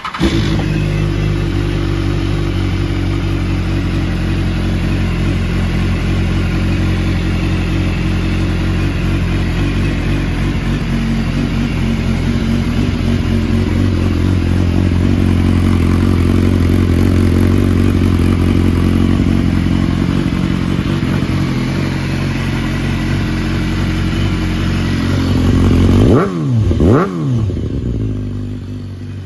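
BMW S1000RR's inline-four engine, breathing through an Akrapovic full exhaust system, fires up and idles steadily. Near the end the throttle is blipped twice in quick succession, the revs rising and falling each time before dropping back to idle.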